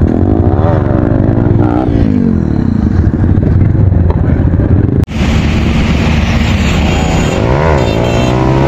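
Motorcycle engine revving up and down several times, its pitch climbing and falling back over a steady low drone. The sound cuts out for an instant about five seconds in, then carries on.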